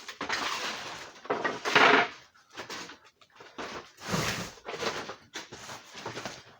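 Irregular rustling, scraping and knocking of things being handled, with the loudest scrape about two seconds in.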